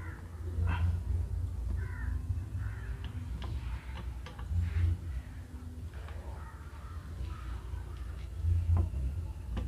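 Crow-like caws from birds over a steady low rumble, with a few light clicks.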